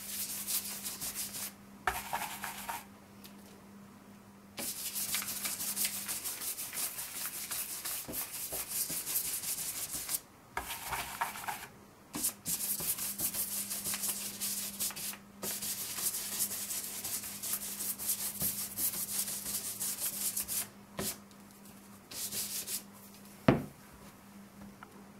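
Stencil brush scrubbing paint through a stencil onto paper: a rapid, dry scratching of bristles, broken by a few short pauses. A single sharp knock near the end.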